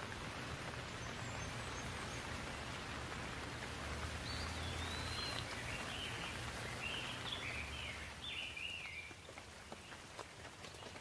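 Steady rain falling, with a bird calling in a run of short chirps and whistles in the middle. The rain gets quieter near the end.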